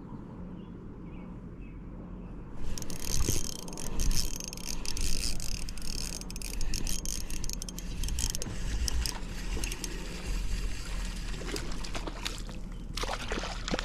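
Close rustling and scraping handling noise with many small clicks, starting about two and a half seconds in: clothing and gear moving against the body-worn camera's microphone as the angler shifts about, with a brief louder burst near the end.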